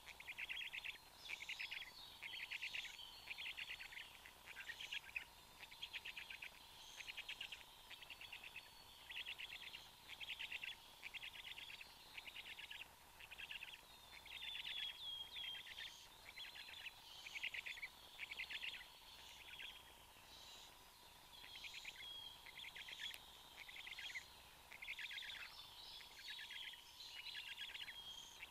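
Black stork chicks calling in a steady rhythm of short, rapid rattling bursts, a little more than one a second: the begging calls of nestlings while the adult feeds them. A few higher gliding chirps from another bird come in about halfway and near the end, over a faint steady high tone.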